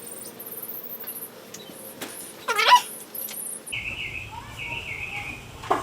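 Birds calling: faint high chirps, one loud call that sweeps down in pitch about two and a half seconds in, then a repeated warbling song for the last two seconds.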